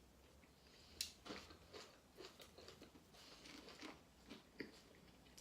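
Faint eating sounds: chewing, with scattered small clicks, the sharpest about a second in.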